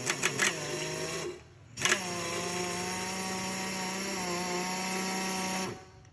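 Electric power tool motor, like a drill, run in two bursts: a short run of about a second that starts with a few clicks, then a steady run of about four seconds at an even pitch that stops near the end.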